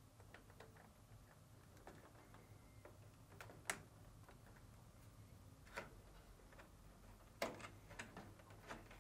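Faint, sharp plastic clicks and taps from wiring-harness connectors being pushed until they snap into place on a dryer's control panel and wires pressed into their plastic retainers. There are a few scattered clicks, most of them in the last couple of seconds, over an otherwise near-silent background.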